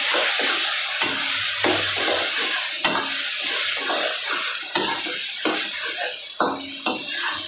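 Pork with shrimp paste sizzling in a frying pan while it is stirred, with scraping strokes of the utensil a couple of times a second and a few sharp clicks against the pan.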